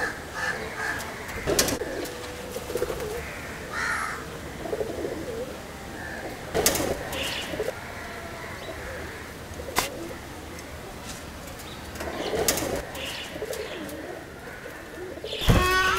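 Pigeons cooing over quiet outdoor ambience, with a few sharp clicks. A louder rattling clatter comes near the end.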